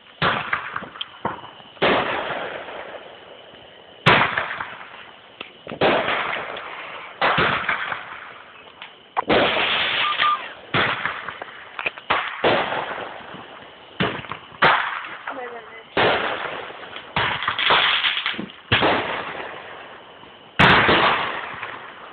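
Aerial fireworks bursting in quick succession, a sharp bang about every one to two seconds, each followed by a fading rumble and crackle.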